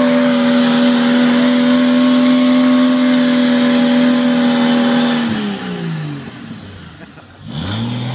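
Jeep Wrangler YJ engine held at steady high revs as the Jeep is stuck in a mud bog, then the revs fall away about five seconds in, drop low for a moment, and climb again just before the end.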